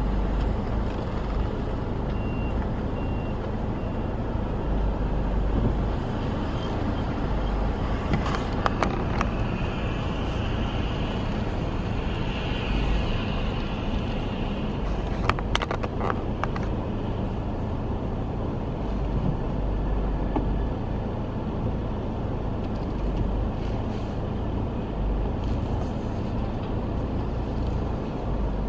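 Vehicle driving slowly: steady engine and road rumble, with a few faint high beeps about two seconds in and a few sharp clicks or knocks around nine and sixteen seconds in.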